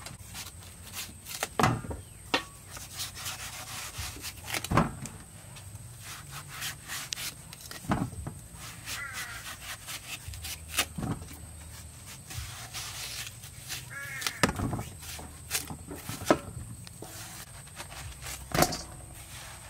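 Large kitchen knife cutting watermelon, the blade rasping through rind and flesh, with an irregular knock every few seconds as it cuts through or pieces land in a stainless steel bowl.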